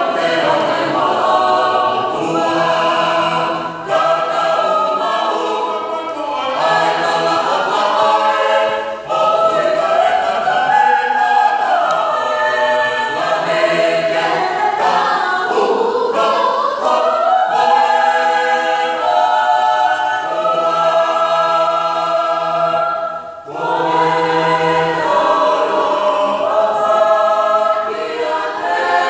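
Mixed youth choir of men, women and children singing a Tongan hiva usu hymn unaccompanied, in several voice parts, with a short break for breath late on.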